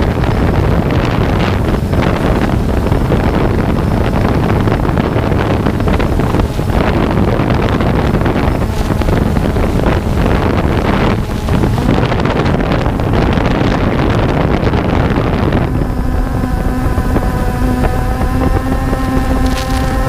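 Wind noise on the onboard GoPro microphone of a flying DJI Phantom 2 quadcopter, mixed with the buzz of its propellers. About sixteen seconds in the wind noise eases and the propellers' steady hum, with several pitches held together, comes through clearly.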